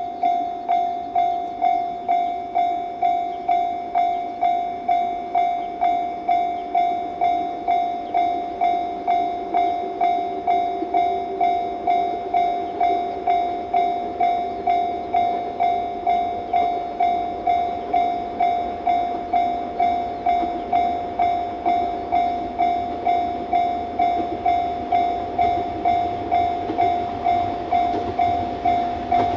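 Japanese level-crossing warning bell dinging steadily at about one and a half strokes a second, each ding a single ringing tone. An approaching train's rumble grows under it toward the end.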